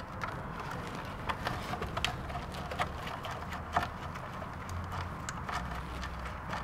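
Faint, scattered small clicks and scrapes of a screwdriver working the slotted screw of a hose clamp on a turbo hose, over a faint low hum.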